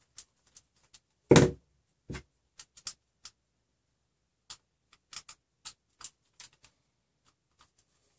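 Light clicks and ticks of a screwdriver working an M3 bolt in a plastic 3D-printed extruder body. There is a louder knock just over a second in and a smaller one about two seconds in.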